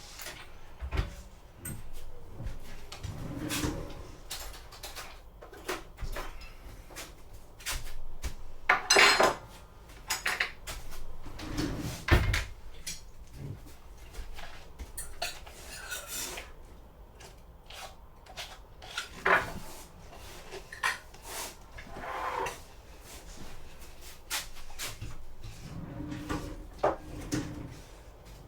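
Dishes and cutlery clinking and knocking at irregular intervals, with louder clatters about nine and twelve seconds in.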